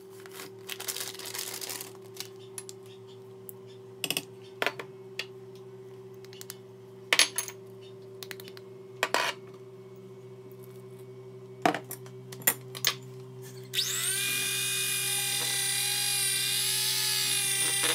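Dry cake mix poured into a stainless steel bowl, then scattered clinks and knocks against the bowl as eggs and water are tipped in. About three quarters of the way through, an electric hand mixer starts and runs with a steady whine, its beaters in the batter; it is the loudest sound.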